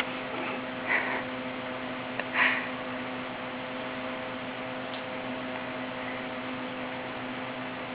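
Steady electrical hum with a few fixed tones over faint room noise, broken by two short sounds about one and two and a half seconds in.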